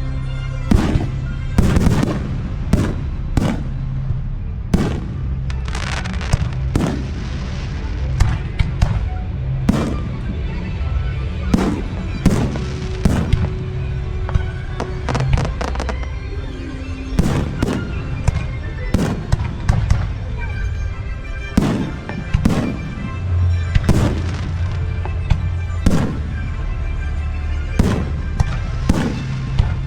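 Aerial firework shells bursting in quick succession, roughly one or two bangs a second, with a stretch of crackling a few seconds in. Music with a steady bass plays underneath.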